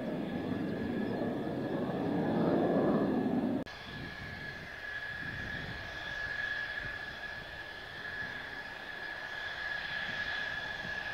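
Mitsubishi F-2's F110 turbofan: a loud jet roar as the fighter flies by, which cuts off abruptly about three and a half seconds in to a quieter, steady high-pitched whine of the engine at low power on the ground.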